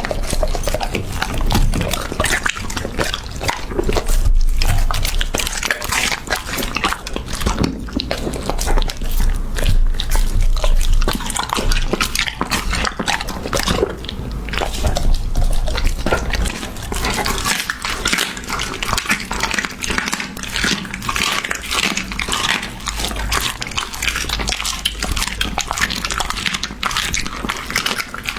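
A puppy eating raw meat close to the microphone: steady wet chewing and smacking, a dense irregular run of small clicks.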